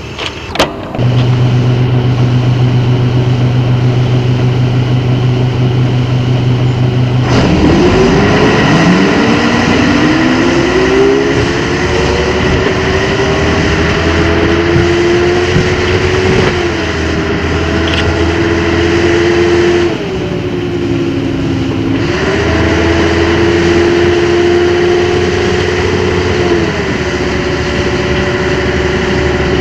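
DAF city bus diesel engine idling, then pulling away about seven seconds in and accelerating. The engine note rises and drops back several times as the gearbox changes up.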